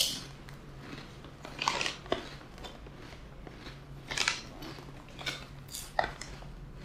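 Crispy fried fish skin snack being bitten and chewed: a series of short, sharp crunches, the loudest at the start.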